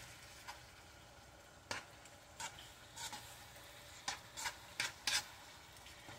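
A utensil stirring and scraping shaved steak and peppers around a granite-coated nonstick pan, about eight short scrapes at uneven intervals, over a faint sizzle of the meat cooking.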